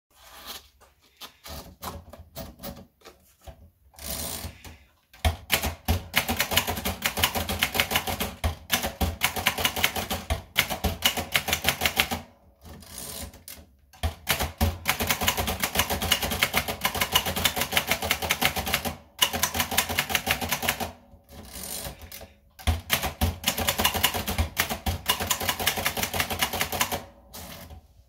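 Adler Favorit manual portable typewriter: a few scattered clicks as paper is rolled in, then rapid typing with keys and typebars striking the platen in quick runs, separated by short pauses.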